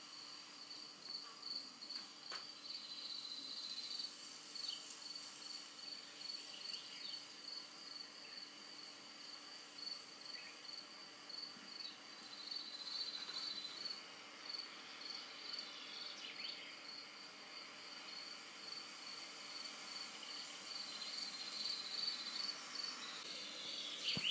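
Insect chirping in a steady run of short, high-pitched pulses at an even rate, faint against quiet open-air background noise.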